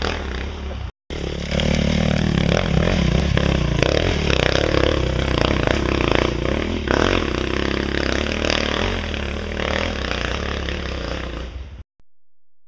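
A 450 four-stroke dirt bike engine revving hard under load as it climbs a steep hill. The sound drops out briefly about a second in, then comes back louder and cuts off abruptly near the end.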